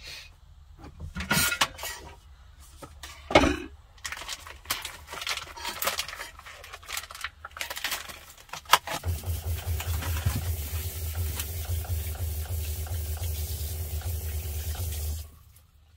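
Scattered knocks and plastic rustling as a package of meat is handled, then a camper-van sink faucet running steadily for about six seconds, rinsing the turkey necks, with a low pump hum underneath; both cut off together near the end.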